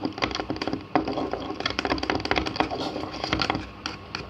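A utensil stirring a wet slime mixture of glue, soap and colouring in a container, with quick, irregular clicks and taps against the container.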